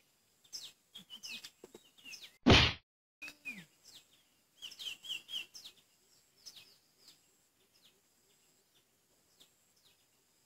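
Small birds chirping over and over in short, high, falling chirps, thinning out in the second half. One brief loud thump about two and a half seconds in.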